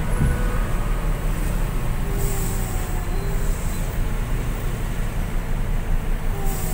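Truck on the move: a steady low engine rumble with road noise, and a brief hiss about two seconds in and again near the end.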